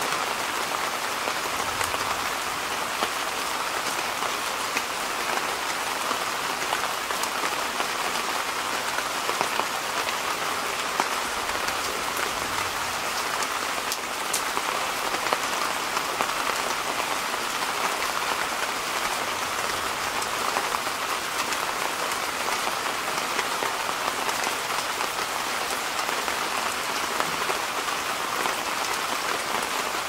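Steady rain: an even, unbroken hiss with faint individual drop ticks scattered through it.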